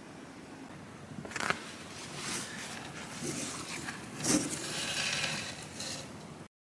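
Handling noise: rustling with light knocks and clicks, the two sharpest about one and a half and four and a half seconds in, then the sound cuts off suddenly.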